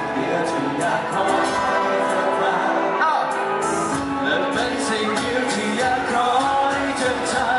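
Acoustic guitar playing a Thai pop ballad live, with singing over it.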